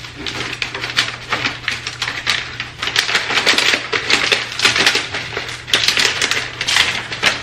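Peel-and-stick vinyl wallpaper and its paper backing crackling and crinkling in a fast, irregular run as the sheet is peeled, lifted and pressed flat onto the wall by hand.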